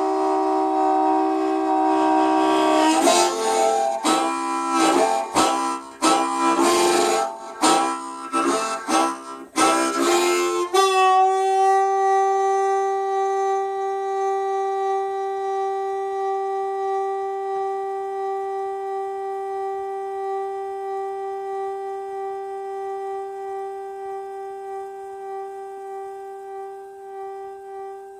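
Harmonica playing: a held chord, then short choppy chords for several seconds, then one long note held and slowly fading.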